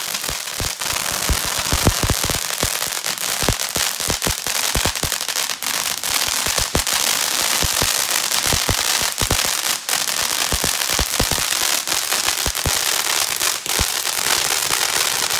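Ground fountain firework spraying sparks: a steady hiss with many sharp crackling pops throughout.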